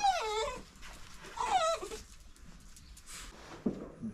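A small animal whining twice: a high, wavering cry at the start and a second one about a second and a half later that falls in pitch.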